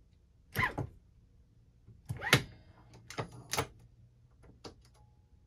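Sharp metal clacks and knocks from a Hornady Lock-N-Load AP reloading press being worked, its case-activated Bench Rest powder measure throwing a charge. There are about five knocks, the loudest about two seconds in with a brief metallic ring.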